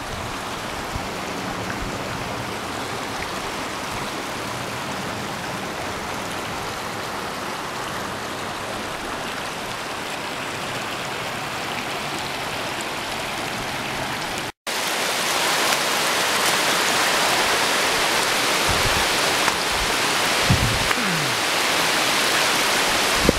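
Steady rushing of a creek running over rocks, louder after a cut about two-thirds of the way through. A few brief low bumps near the end.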